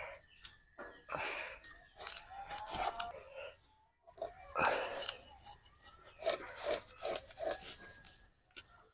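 Scales being scraped off small fish with hand-held curved blades: repeated rasping scrapes in two stretches, with a short pause between them.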